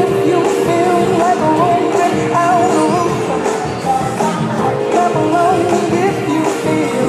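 Background music: a song with a singing voice over a band, steady throughout.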